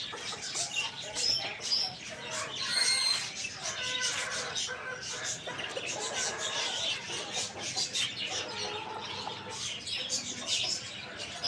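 Chickens clucking amid many small birds chirping, a busy overlapping chatter of short calls.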